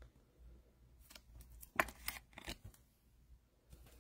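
A trading card being slid into a rigid clear plastic top loader: a few light plastic clicks and scrapes, starting about a second and a half in.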